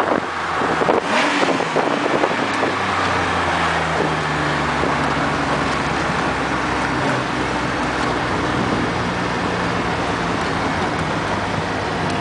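Engine of a 1971 Nissan Skyline 2000GT fitted with a 3.2-litre engine, running steadily while the car is driven, heard from inside the cabin along with road and wind noise. Its pitch shifts a few times as the revs change.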